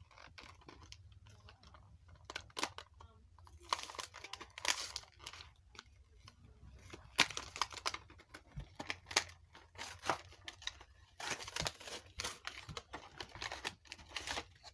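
Toy-surprise packaging being torn open and crinkled by hand: irregular bursts of tearing, rustling and clicks, starting about a few seconds in and continuing in bouts.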